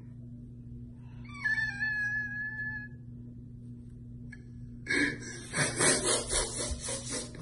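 A man's mock crying: a high, drawn-out whine about a second and a half in, then near the end a run of rapid, noisy sobbing breaths pulsing about four to five times a second.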